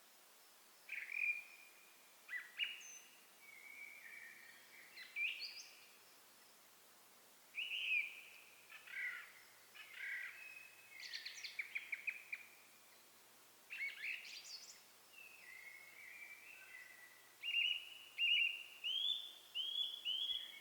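Songbirds singing: varied whistled and chirping phrases with short pauses between them, ending in a run of about five repeated rising notes.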